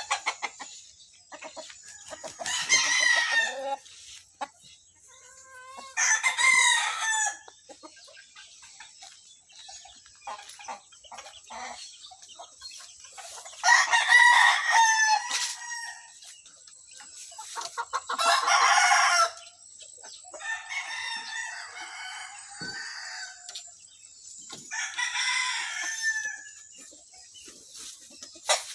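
Game-fowl roosters crowing, five long crows a few seconds apart, with softer clucking in between.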